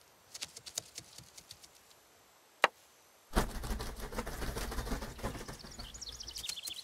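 Cartoon sound effects: scattered light ticks, then a single sharp knock, then a sudden burst of rustling noise with a low rumble, ending with a quick run of bird-like chirps.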